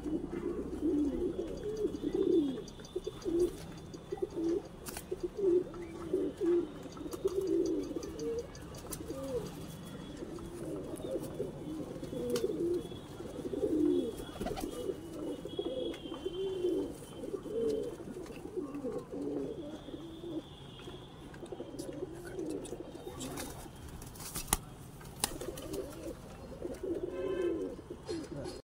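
Domestic pigeons cooing over and over, several birds overlapping in low, rolling coos, with a few sharp clicks among them.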